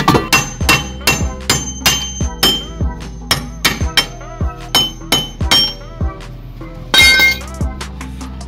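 Hammer striking the rusty rear brake hub and drum of an AE101 Toyota Corolla, sharp metal knocks about twice a second, each ringing briefly, with a louder clatter about seven seconds in. Background music plays underneath.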